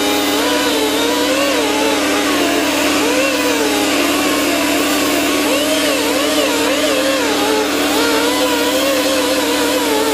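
Power grinder with a wire wheel running steadily while stripping rust off a steel mower deck, its pitch wavering up and down as the wheel is pressed into the metal.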